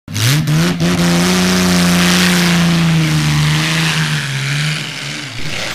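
Car engine revving up quickly, held high for about four seconds, then falling back in pitch and fading out near the end.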